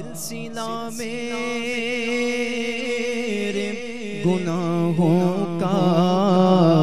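Male voice singing a devotional naat without instruments, drawing out a long melismatic phrase: held notes first, then wavering ornamented runs from about four seconds in.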